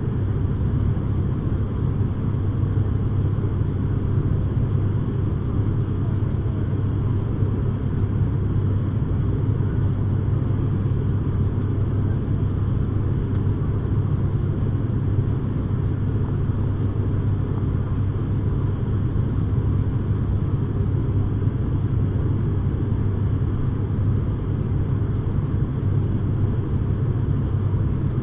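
Steady low drone of an ATR 72's turboprop engines and propellers, heard inside the passenger cabin during the climb after take-off.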